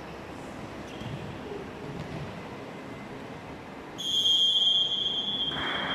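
Basketball game crowd murmur, then about four seconds in a referee's whistle blows one loud, shrill blast lasting about a second and a half, stopping play. Crowd noise swells just after the blast.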